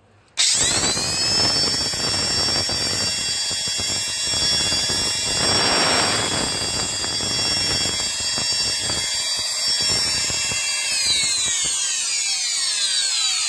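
Electric paint spray gun spraying red oxide primer. Its motor starts with a rising whine about half a second in and then runs steadily. It is switched off about 11 s in, and the whine falls in pitch as it winds down.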